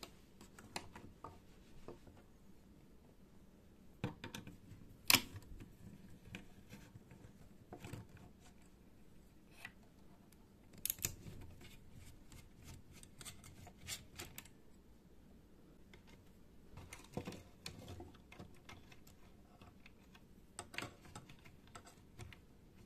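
Scattered light clicks and taps of a screwdriver and fingers on the plastic chassis and small metal parts of a tape machine being taken apart, with one sharper click about five seconds in.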